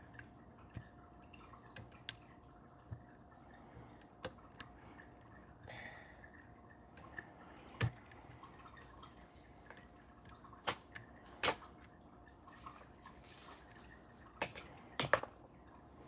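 Irregular small clicks and ticks of a dimple pick and tension tool working the pins inside a Mul-T-Lock Interactive dimple lock, with the sharpest clicks near the end.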